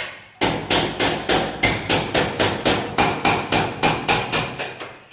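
Steady series of hammer blows on stainless-steel sheet, about three a second, each ringing metallically. This is the work of preparing a weld seam on a stainless-steel stove body. The blows start after a brief pause and stop shortly before the end.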